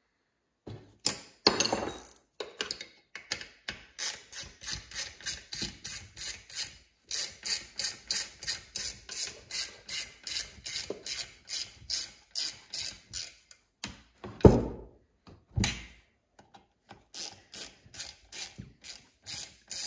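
Hand ratchet with a T27 Torx bit clicking in quick back-strokes, about two to three a second, as it runs in the muffler-plate bolts on a Stihl 026 chainsaw. The ratcheting pauses for two louder knocks about two-thirds of the way in, then starts again.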